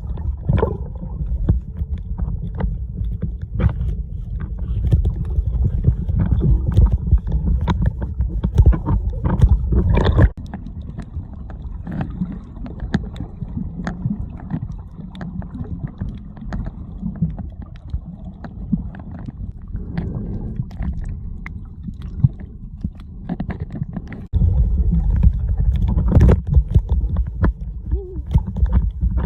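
Muffled underwater noise picked up by a submerged camera: a dense low rumble of moving water with scattered clicks and pops. The rumble drops off abruptly about ten seconds in to a quieter stretch and returns just as abruptly near the end.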